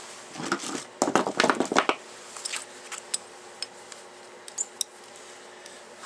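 Small metal parts and hand tools being handled: a quick run of clicks and rattles in the first two seconds, then a few separate clicks.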